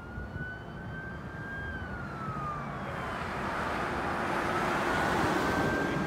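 Fire engine siren on a slow wail, its pitch sliding down and then back up. A pickup truck drives past, its road noise swelling about four to five seconds in.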